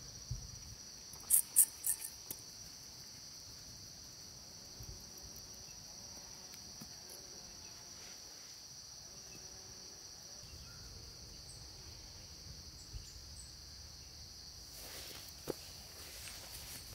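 Insects chirring in one steady high-pitched drone. A few sharp clicks a second or two in, and one more near the end.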